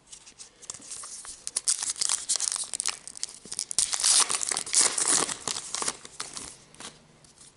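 A foil trading-card pack being torn open and its wrapper crinkled: a run of crackling rips and crinkles that fades out near the end.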